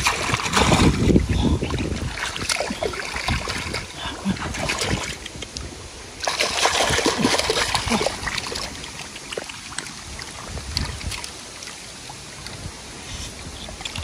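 Water splashing and sloshing in irregular bursts, with trickling, as from hands and arms working in shallow water; busiest at the start and again midway.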